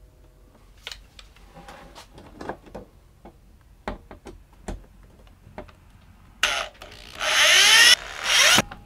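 Light clicks and knocks as a wire spice rack and screws are handled against a wooden cabinet door, then a corded drill drives screws into the door in three short bursts, its motor whine rising and falling, the longest burst near the end.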